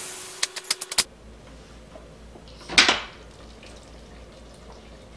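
Instant Pot pressure cooker being opened: a sharp clunk as the stainless lid is unlocked and lifted about three seconds in. Before it, a second-long hiss with a few quick clicks.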